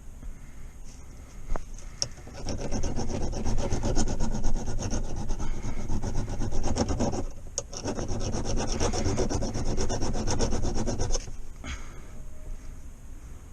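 A file rasping in quick back-and-forth strokes against the gear shifter, filing it down, in two spells: from about two and a half seconds to about seven, then again from about eight to eleven seconds.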